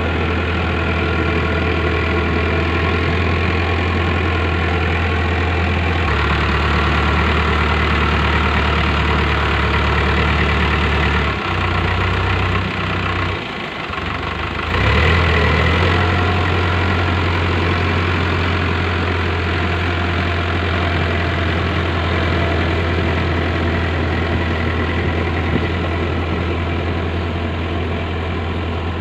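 Powertrac Euro 55 tractor's diesel engine running steadily under load while its rotavator tills a flooded paddy field. The engine note steps up slightly about six seconds in and drops away briefly around the middle before returning.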